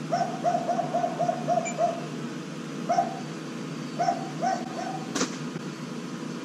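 A dog barking in quick runs of short barks, about three a second, with pauses between the runs. A single sharp click sounds about five seconds in.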